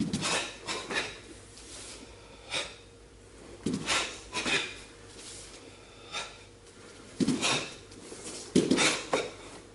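Two karateka performing the Heian Godan kata: the swish and snap of their cotton gi with each block and punch, and bare feet slapping and sliding on the wooden floor. These come as short, sharp bursts in irregular clusters, the loudest near the end.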